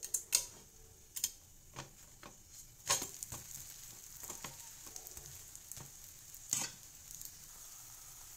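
A batter pitha (pancake) frying with a faint steady sizzle on a flat pan while a steel spatula scrapes under it and turns it over. A few sharp scrapes and clicks of metal on the pan stand out, the loudest about three seconds in and again later on.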